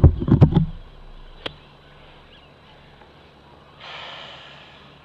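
Loud puffs of air on the microphone in the first second, a single sharp click about a second and a half in, then a short brushing swish about four seconds in as the golf club sweeps through the turf on a short iron shot.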